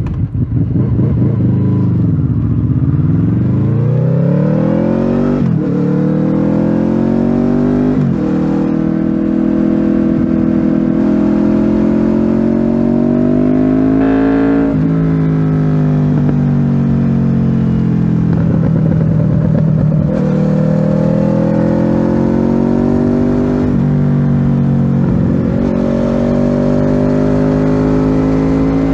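Honda VFR800F's V4 engine through an SC-Project aftermarket exhaust, pulling under acceleration on the road. The pitch climbs steadily in each gear and drops sharply at several upshifts.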